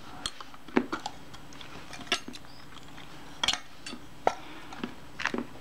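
Scattered light clicks and taps of small metal parts: an opened Kodak Retina I camera body and small hand tools being handled and set down, about seven or eight separate ticks.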